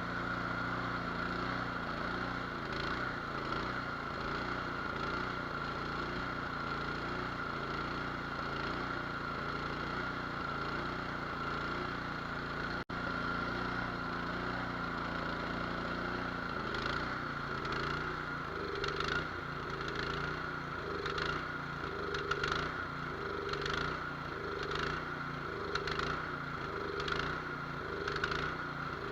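Cub Cadet 208cc single-cylinder snowblower engine running. About halfway through, its speed starts to rise and fall in a regular surge about once a second. Surging like this is typical of a clogged idle jet.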